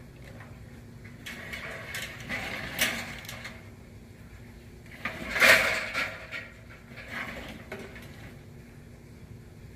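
Scattered metal clunks and scrapes of an air-conditioning condenser being landed and shifted on the roof off a ladder hoist, the loudest clatter about five and a half seconds in.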